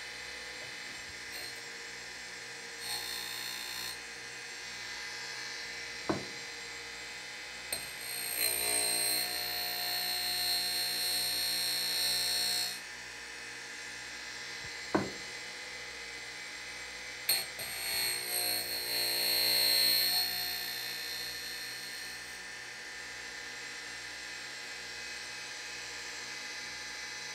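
Surface grinder's abrasive wheel spinning with a steady hum while the flute of a steel end mill, held in a Weldon sharpening jig, is drawn across it three times. Each pass gives a high grinding hiss: a short one, then two of about five seconds each. Two sharp clicks come between the passes.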